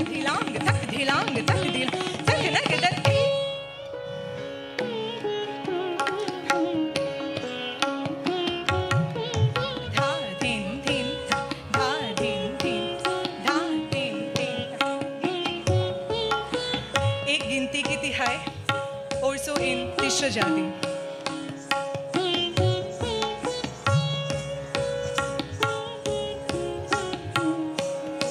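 Sitar and tabla playing Kathak accompaniment in medium-tempo teentaal, over a steady held note. The first three seconds are louder and denser, then the music drops back and carries on at an even pulse.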